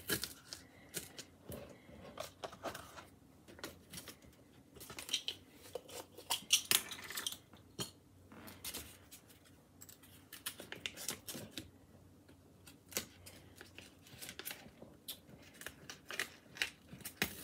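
Quiet, irregular rustling, crinkling and light clicks of fake cupcakes in foil liners being handled and pressed onto toothpicks. There is a busier patch of handling about five to seven seconds in.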